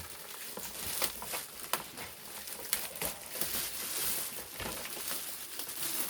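Packaging being handled as an appliance is unpacked: crinkling and rustling, with scattered light clicks and knocks throughout.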